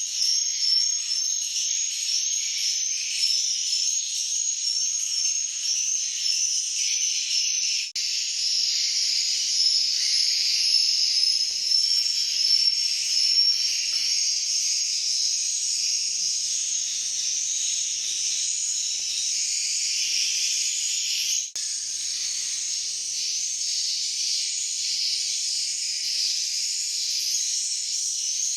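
A dense, high-pitched twittering chorus of many edible-nest swiftlets, steady throughout, with two brief breaks, about eight seconds in and again past twenty seconds.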